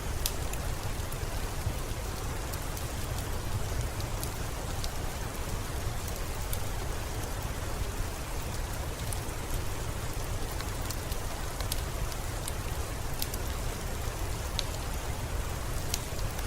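Steady rain falling, with scattered sharp clicks over it.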